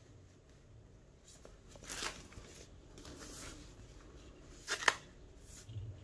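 A graphics card's packaging being handled and opened: scattered rustles, a louder rustle about two seconds in, and a sharp click near the five-second mark.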